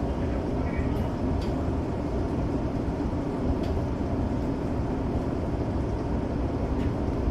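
Steady low rumble of a Tokyo Metro 05 series electric train, heard from the cab, with a few faint clicks.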